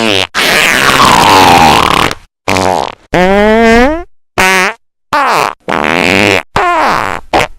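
A rapid string of about eight cartoon fart sound effects, played over-amplified and very loud, each cut off by a brief silence. The first is the longest, about two seconds; several others rise or fall in pitch.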